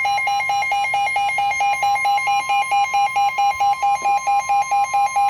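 NOAA Weather Radio alert tone heralding a special marine warning: a loud, steady high tone with a rapid pulsing beep of about five to six beeps a second over it.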